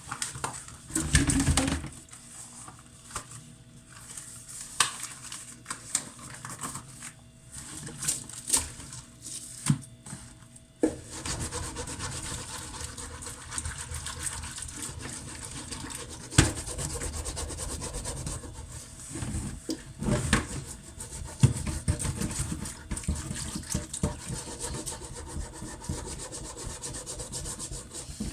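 Cookware being washed by hand. First there are scattered knocks and clatters of pots. From about a third of the way in, a pot is scrubbed continuously, broken by occasional sharp clanks.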